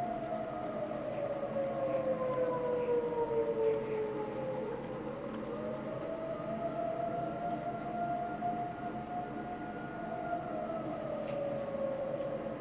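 Outdoor tornado warning sirens sounding the Attack signal for severe weather, a wailing tone that falls in pitch for about five seconds, rises again, and starts falling once more near the end.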